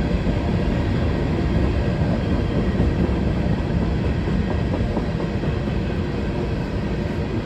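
CSX freight train of covered hopper cars rolling past, a loud, steady rumble of steel wheels on the rails.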